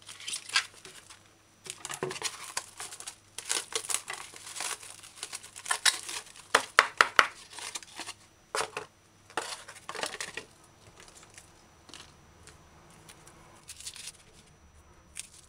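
Thin clear plastic wrapping crinkling and rustling as broccoli is unwrapped. The crackles come irregularly, loudest about six to seven seconds in, and thin out to a few faint rustles after about ten seconds.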